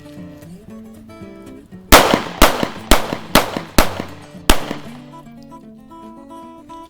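Six pistol shots from a Beretta PX4 Storm fired in quick succession, about half a second apart, each a sharp crack with a short ringing tail, over background music.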